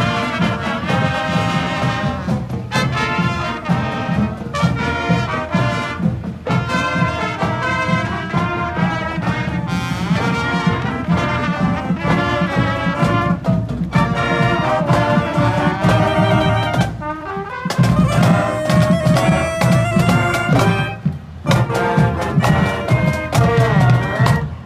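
Marching band playing a tune on trumpets, trombones, saxophones and sousaphone, with snare and bass drums keeping the beat.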